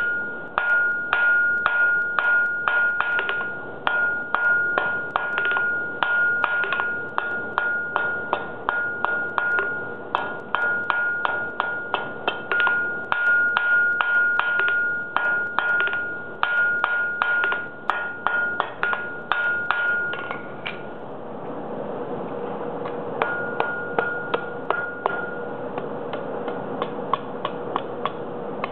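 Hand hammer forging a red-hot steel bar on an anvil, drawing out a taper, at about three blows a second, each blow ringing the anvil with a steady high ring. About 21 seconds in the heavy blows stop, leaving a steady hum and hiss with a few lighter ringing taps.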